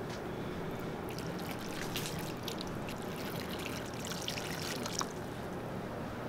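Water pouring from a watering can into a solid seedling tray, trickling and splashing as the tray fills around the pots.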